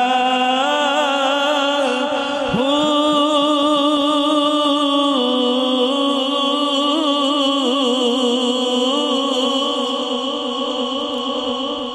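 A man's voice singing a naat through a microphone, drawing out one long held note with a wavering vibrato. The note fades away near the end.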